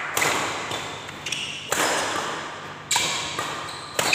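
Badminton rally: rackets striking the shuttlecock about once a second, each sharp hit echoing in a large hall.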